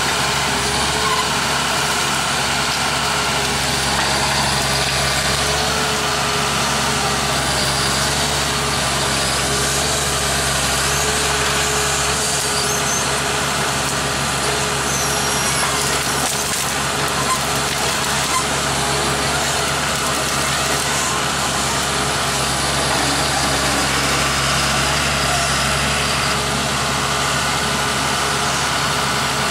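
John Deere forestry forwarder's diesel engine running steadily while its hydraulic loader crane swings and grips brush.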